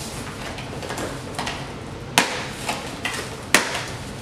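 Small cardboard box handled and its flaps pulled open, with faint rustling and two sharp cardboard snaps a little over a second apart, about two seconds in and again near three and a half seconds.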